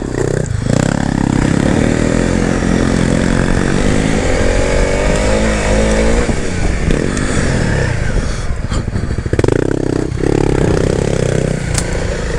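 Honda CRF300L's single-cylinder four-stroke engine riding a rough dirt trail, its pitch rising and falling with the throttle. A few knocks and rattles from the bike over the rough ground.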